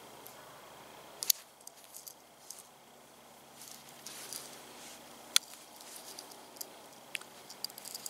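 Small folding multi-tool being handled: its metal implements click sharply as they are folded closed and swung open, once about a second in and again about midway, with lighter ticks and a faint rustle of hands between.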